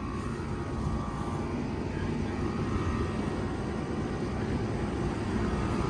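Commercial air-conditioner condensing unit running: a steady rush from the condenser fan with a faint steady whine.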